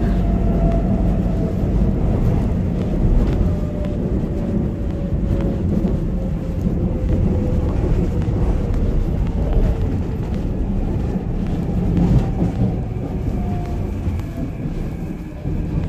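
Seoul subway Line 2 train running, heard from inside the car: a steady low rumble of wheels on the rails under a thin motor whine that slowly falls in pitch as the train slows.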